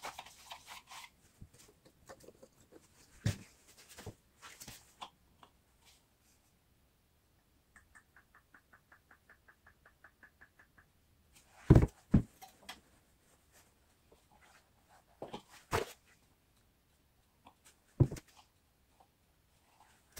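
Handling noises during an engine oil fill: a rag rustling, then a plastic oil jug knocking as it is tipped, handled and set down, with a run of soft, even ticks midway through the pour.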